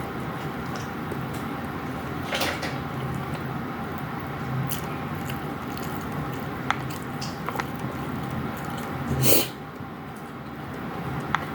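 Close-miked eating: chewing and mouth sounds, with a few short sharp clicks and two louder noisy bursts about two and a half seconds in and near nine seconds in, over a steady low background hum.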